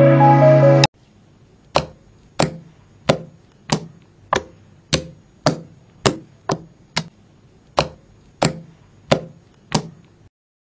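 Fingertips poking a flattened disc of homemade shampoo slime, making a sharp little click or pop with each poke, about fourteen in a row at roughly one every half second. Background music cuts off about a second in.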